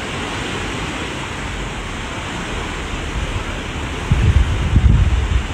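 Sea surf washing against rocks below a cliff, a steady rush. About four seconds in, wind gusts start buffeting the microphone with low rumbling bursts, louder than the surf.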